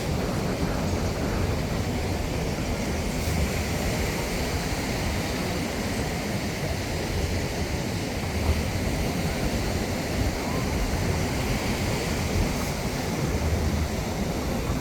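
Wind buffeting the microphone over the steady wash of ocean surf, with a rumble that rises and falls without a break.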